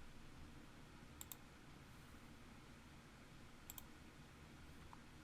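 Faint computer mouse clicks: two quick double clicks, about two and a half seconds apart, over a low steady hum.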